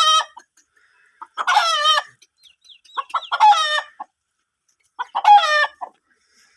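Aseel rooster crowing in short calls, three crows under a second each, about two seconds apart, with the tail of another at the very start.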